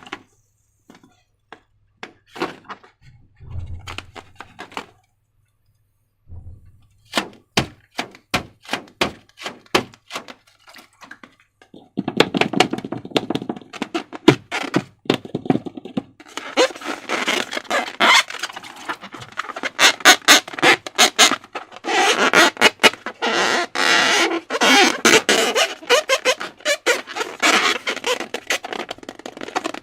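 Slime being handled by hand, giving sticky clicks and squelches with a couple of soft thuds. The clicks are sparse at first, then become a dense, continuous crackling about twelve seconds in.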